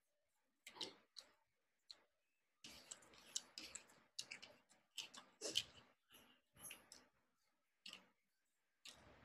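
Close-miked eating sounds: wet chewing and lip-smacking clicks, with fingers mixing rice on a plastic plate. The clicks come irregularly, sparse at first and thickest through the middle.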